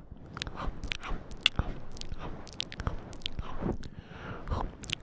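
ASMR mouth sounds close to the microphone: wet, irregular nibbling and chewing smacks and clicks, played as a werewolf chewing on the listener's ear.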